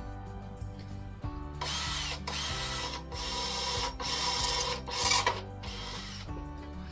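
Power drill run in about six short bursts, drilling out a sheared-off bolt, over background music.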